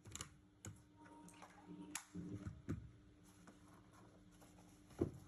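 Faint, irregular clicks, taps and shuffling from hands handling the keyboard and its packaging, with one louder thump about five seconds in.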